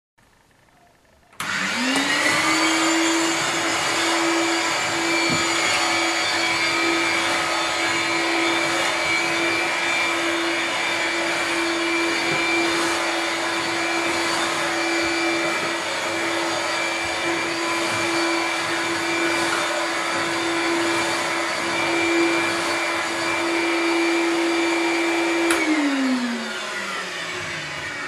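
Hoover Hooverette 2944 stick vacuum cleaner switched on about a second in: the motor rises quickly to speed and runs at a steady pitch with a higher whine over it. Near the end a click as it is switched off, and the motor winds down, its pitch falling.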